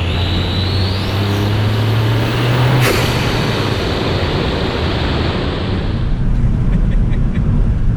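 Ford Fiesta ST's turbocharged 1.5-litre three-cylinder engine with a REVO open-cone induction kit accelerating, its tone rising along with a rising turbo whistle. About three seconds in the throttle closes with a sharp click and the engine note drops away, leaving steady road and wind noise.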